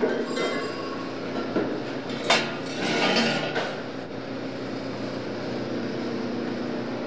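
Auto repair shop ambience: a steady machinery hum with metal clinks and a sharp knock a little over two seconds in, followed by a short run of metallic clanking.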